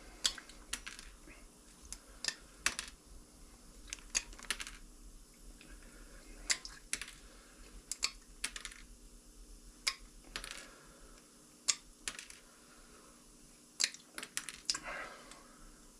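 Light, irregular clicks and taps of small metal parts and tools being handled at a workbench, sometimes two or three in quick succession, with a brief soft hiss near the end.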